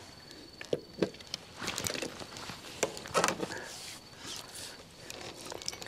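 Scattered knocks, rustles and short scrapes of fishing gear being handled as an angler works his rods and a landing net to land a crucian carp, the loudest burst about three seconds in. A faint steady high tone runs underneath.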